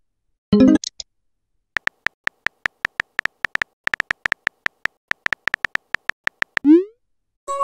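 Texting-app sound effects: a short chime about half a second in, then a run of phone-keyboard key clicks, about five a second, as a message is typed out. Near the end comes a rising swoop as the message is sent, then another short tone.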